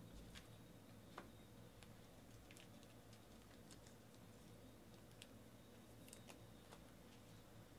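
Near silence with faint, scattered clicks and taps of football trading cards being handled and laid on a table.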